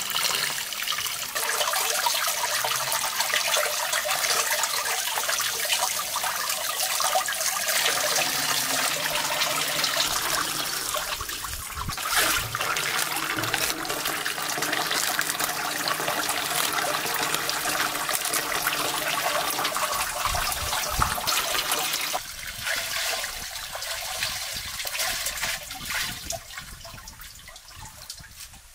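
Tap water running in a stream into a metal basin of water as vegetables are rinsed under it. About 22 seconds in the sound grows lighter, and it fades out near the end.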